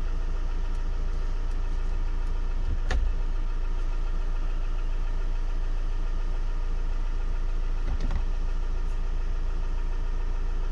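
Ford Transit van's engine idling steadily, heard from inside the cab, with two brief clicks about five seconds apart.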